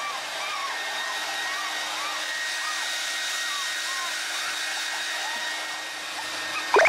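Hair dryer running steadily while a wet toy poodle puppy whimpers in short high whines, about two a second, ending in a louder rising squeal near the end.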